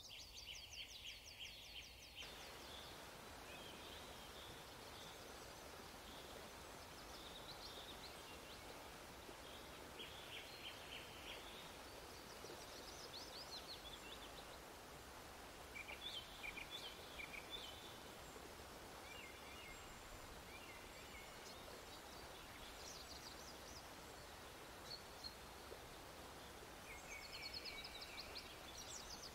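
Faint birdsong: short, fast trills repeating every few seconds over a steady background hiss.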